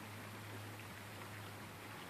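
Faint, steady outdoor ambience: an even hiss with a low, steady hum underneath and no distinct events.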